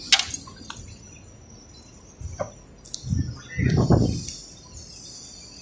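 Birds chirping faintly, with a sharp knock at the start and a louder rumbling burst about three to four seconds in.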